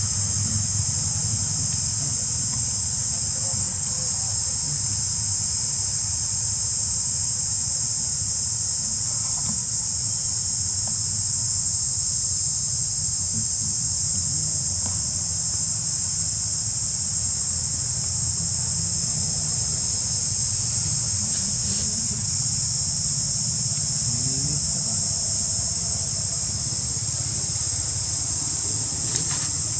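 A steady, high-pitched insect chorus buzzing without a break, over a low steady rumble.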